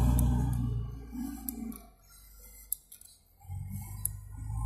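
Round file scraping over a chainsaw chain's cutters by hand, with short light metallic ticks and clicks. A low rumble fades out within the first two seconds and comes back about three and a half seconds in.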